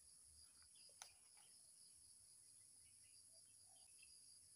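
Near silence with a faint, steady, high-pitched insect chorus, and one soft click about a second in.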